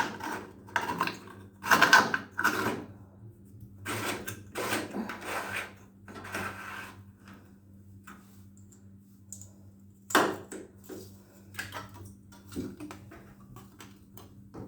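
Irregular clacks and knocks of things being handled, loudest about two seconds in and again about ten seconds in, over a steady low hum.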